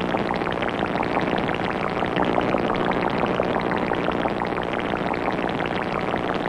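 Cartoon force-field dome sound effect: a dense, steady crackling fizz that breaks off suddenly at the end.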